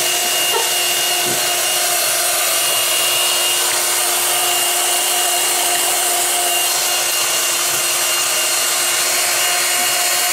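Electric hand mixer running at a steady speed, its beaters whisking cake batter in a glass bowl: a constant motor hum and whir that does not change in pitch.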